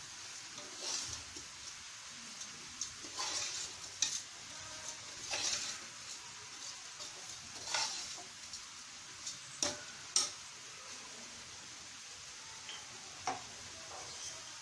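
A spoon stirring soaked rice into quail biryani masala in a pressure cooker, scraping against the pot in irregular strokes over a faint steady sizzle.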